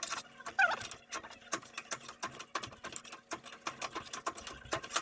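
Ratchet wrench being worked back and forth on a socket over a part held in a bench vise, clicking in an uneven run of about five clicks a second.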